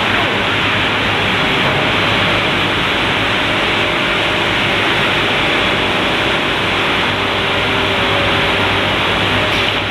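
MgO board saw cutting machine running, a steady loud whir of its motors and saws with a low hum underneath.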